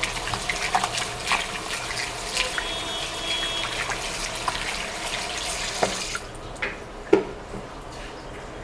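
Water running from a tap and splashing into a sink, shut off suddenly about six seconds in. A couple of light knocks follow.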